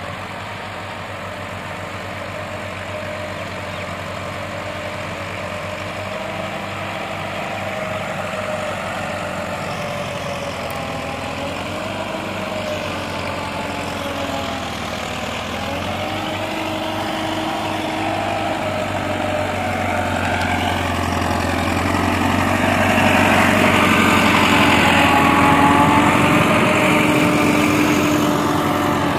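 Massey Ferguson MF 385 tractor's diesel engine running under load while pulling a tine cultivator through dry soil, its pitch wavering slightly. It grows steadily louder and is loudest a few seconds before the end, as the tractor and implement come close.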